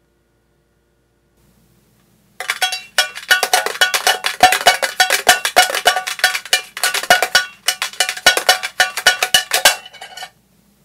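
A penny rattling inside a coin bank, shaken fast so that it clicks with a metallic ring, in two runs with a brief pause about halfway.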